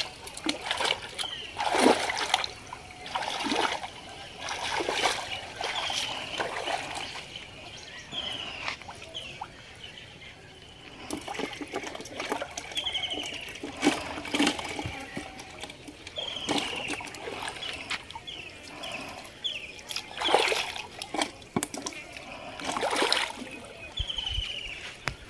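Shallow pond water splashing and sloshing in irregular bursts as hands gather a cast net and grope for fish underwater. A bird's short, falling chirps repeat in between.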